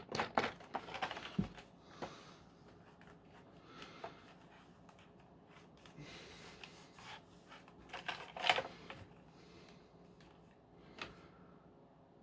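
Hard plastic clicks and rattles of a Dyson V10 cordless vacuum's parts being handled and fitted, a quick run of clicks at first, then scattered taps with a louder clatter about eight and a half seconds in.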